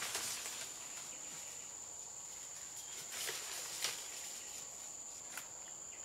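Insects droning in one steady high-pitched tone, with a few short rustles or crunches about three, four and five seconds in.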